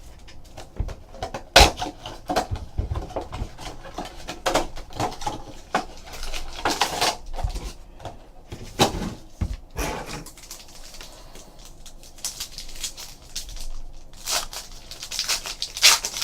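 Panini Elite Series basketball card box and foil packs being torn open and handled: irregular crinkling and rustling with sharp taps and clicks, loudest about a second and a half in and again near the end.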